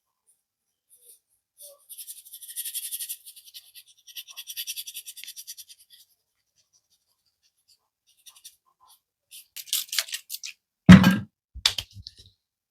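Hands working on a customer's head and skin during a barber's massage: two bouts of quick, scratchy rubbing strokes, then a handful of sharp smacks near the end, the loudest about eleven seconds in.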